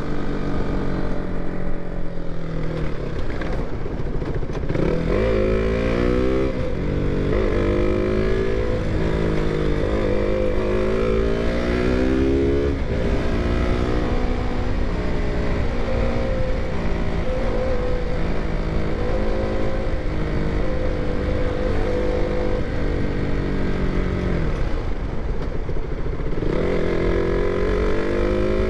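A KTM single-cylinder motorcycle engine heard while riding, revving up and dropping in pitch at each gear change. It settles into a steady cruise in the middle, then slows and revs up again near the end, over steady wind noise.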